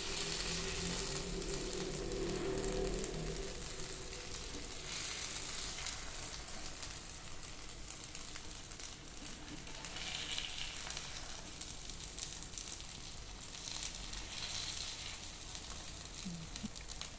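Egg batter sizzling in hot oil in the hollows of a paddu (appe) pan on a low flame, the paddu freshly flipped: a steady fine crackling hiss that swells a little about ten seconds in.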